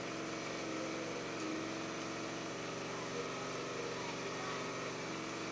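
Steady machine hum at an even, unchanging pitch.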